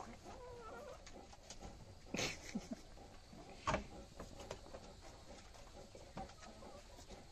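Goats eating watermelon rind, with small crunching and clicking sounds and two louder sharp crunches or knocks about two and four seconds in. A faint wavering goat bleat sounds at the very start.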